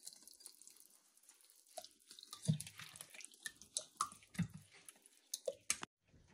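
Silicone spatula stirring a runny spice marinade in a glass bowl: faint wet stirring and sloshing, with scattered small clicks of the spatula against the glass and a couple of duller knocks.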